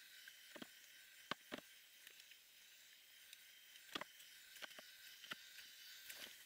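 Near silence: a faint steady hiss with a handful of light clicks and knocks as a tank-top propane heater is handled.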